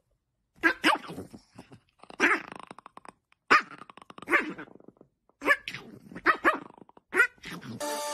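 Dog barking and growling in a series of about seven short outbursts, roughly one a second. Electronic music starts right at the end.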